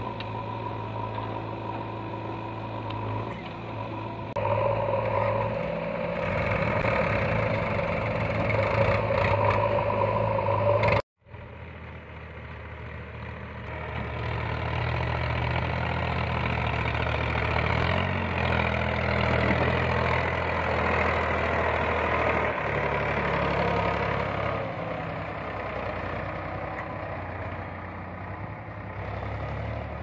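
JCB 3DX backhoe loader's diesel engine running as it digs, growing louder about four seconds in as the work picks up. After an abrupt break, a farm tractor's diesel engine running steadily as it pulls a tipping trolley along a dirt track.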